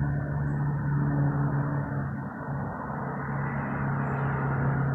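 A steady, low engine hum with an unchanging pitch.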